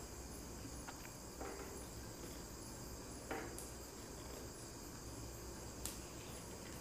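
Faint soft taps, about four, as stuffed tomatoes are set down one by one into a nonstick kadai with a little oil. A faint high-pitched chirping repeats steadily in the background.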